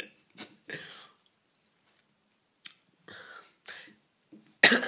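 A person's breathy, stifled laughter in short bursts, with a louder burst near the end.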